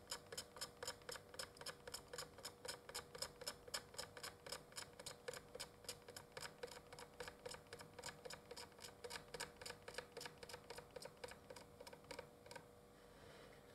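Faint, regular ticking, about four or five ticks a second, over a low steady hum; the ticking stops about a second before the end.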